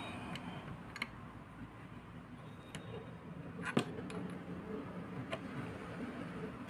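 A few sharp, light metallic clicks and knocks as a brass ball valve is handled with tools, the loudest a little under four seconds in, over a low steady background.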